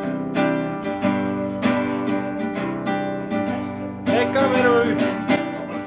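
Acoustic guitar strummed in chords, the strokes coming about every half second with the notes ringing on between them.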